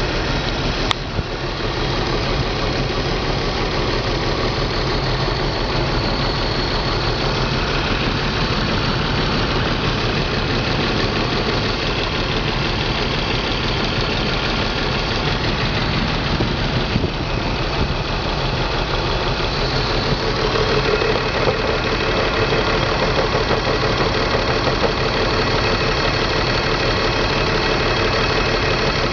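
BMW M54 2.5-litre straight-six idling steadily, with a single sharp click about a second in. The owner reports this engine misfires in cylinders 3 and 5 when cold, shaking until it warms up.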